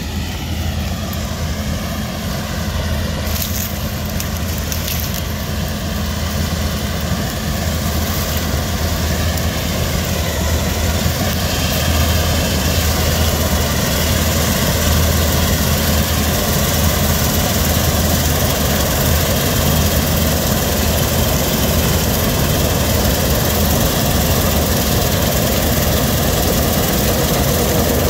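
Claas Lexion 5500 combine harvester running under load while cutting dry tic beans with its Convio 770 belt header. It is a steady mechanical drone with a deep hum, growing louder over the first twelve seconds or so and then holding steady.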